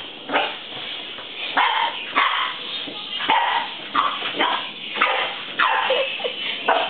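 Eight-week-old boxer puppy barking, about ten short barks in a row at roughly one to two a second.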